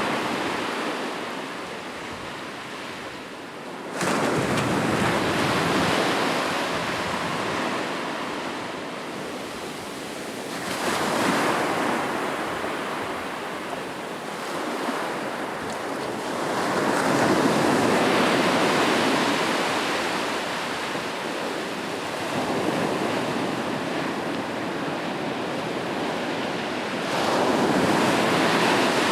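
Ocean surf on a beach: a continuous wash of waves that swells and fades in slow surges, with one wave breaking abruptly about four seconds in and others rolling in around eleven seconds, in the middle and near the end.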